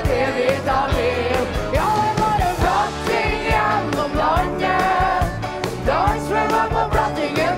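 A song performed live in Norwegian: a singer with a backing band over a steady drum beat.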